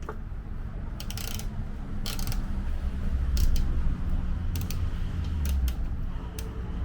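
Scattered light clicks and clinks of hand tools and small metal parts being worked, over a low rumble of handling noise that swells in the middle.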